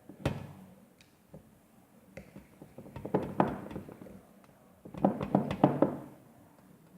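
Slime being stirred in a container with a spoon or stirrer: a sharp knock about a quarter second in, then two spells of quick clicks and taps of the utensil against the container, around three seconds in and again around five seconds in.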